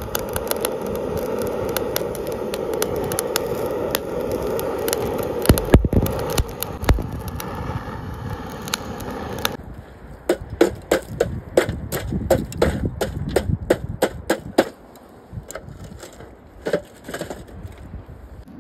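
A butane torch's flame hissing steadily against lump charcoal. About ten seconds in, the hiss stops and the coals crackle, with sharp, irregular pops a few times a second as they catch.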